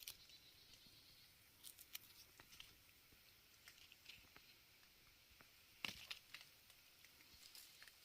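Near silence with scattered faint crackles and rustles of sand plum bush leaves and twigs as the fruit is picked by hand, the loudest crackle about six seconds in.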